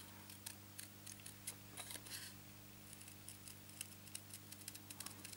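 Small paper snips cutting rose red card stock, a string of faint, irregular snips of the blades as they cut close around a stamped outline, over a low steady hum.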